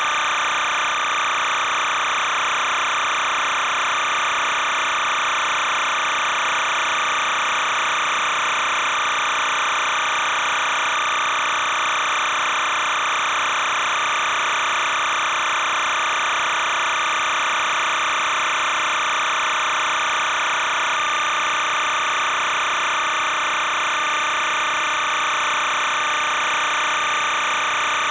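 Steady, unchanging hiss-like noise with no game sound: a featureless background that does not rise or fall with the action.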